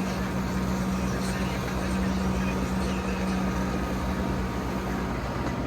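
Skid steer engine running steadily with an even hum.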